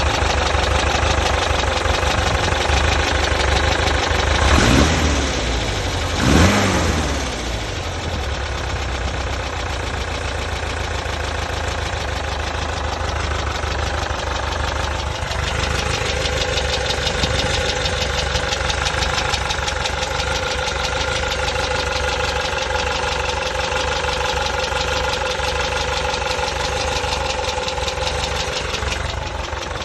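Volkswagen Type 4 air-cooled flat-four engine running, blipped up in revs twice in quick succession a few seconds in, then idling steadily with a fast rhythmic knock, which the owner questions as engine knocking.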